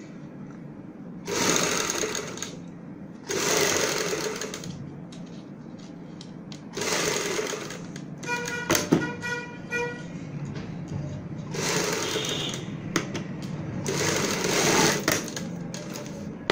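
Sewing machine running in five short bursts of about a second each with pauses between, stitching the neck-design piece along its buckram edge. A brief pitched tone sounds about halfway through, among a few sharp clicks.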